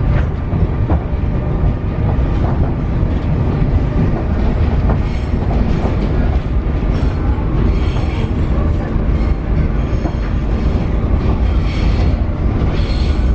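Paris Metro Line 7bis train, an MF 88 set, running along the track: a steady loud rumble with clicks from the wheels over the rails and a faint high ringing from about five seconds in.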